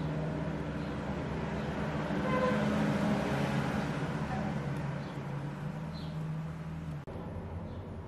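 A steady low droning hum with several held tones that shift slightly in pitch now and then, with a brief dropout about seven seconds in.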